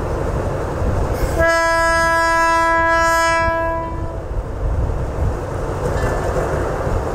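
Alsthom diesel-electric locomotive with an MTU engine sounding its horn once, a single steady note held for about three seconds starting a little over a second in, over the steady rumble of its diesel engine as it runs slowly into the platform.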